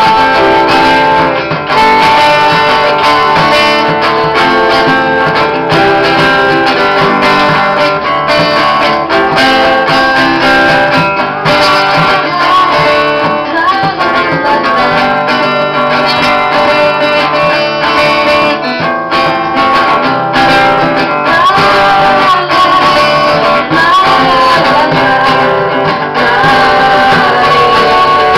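A small acoustic band playing a song live: acoustic guitar, banjo and saxophone, with singing.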